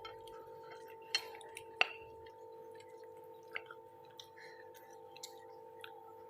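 Quiet eating sounds of instant fried noodles: a few sharp clicks and small taps, the two loudest about a second and two seconds in. Under them runs a faint steady two-note hum.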